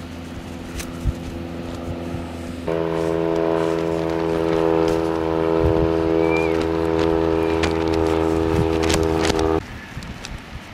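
Light propeller aircraft towing an advertising banner, its engine droning steadily at one pitch. The drone is fainter at first, grows louder and fuller about two and a half seconds in, and cuts off sharply near the end, leaving quieter background noise.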